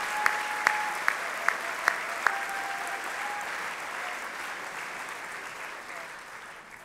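Audience applauding, fading away over the last few seconds. In the first couple of seconds a regular run of short, sharp pitched ticks, about two and a half a second, sounds over the clapping.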